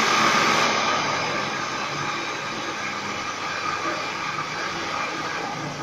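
Electric countertop blender motor running steadily, churning a thick mix of crushed Oreo cookies, condensed milk and cream.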